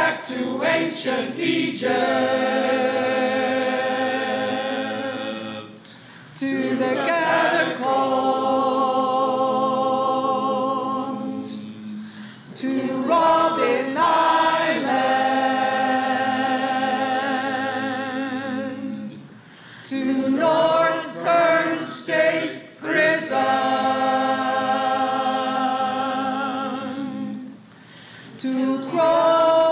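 A mixed group of men's and women's voices singing together a cappella, holding long notes with vibrato in phrases of a few seconds, each followed by a short break for breath.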